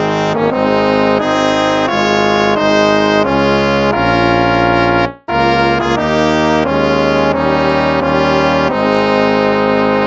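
Instrumental hymn music of slow, held notes and chords; it breaks off briefly about five seconds in and picks up again with the next phrase.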